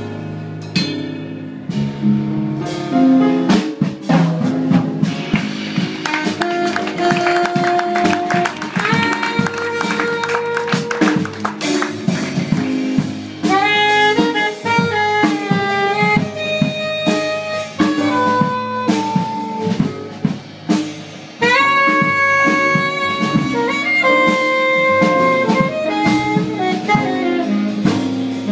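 Live jazz band: a saxophone playing a melodic solo of long held notes and quick runs over a drum kit.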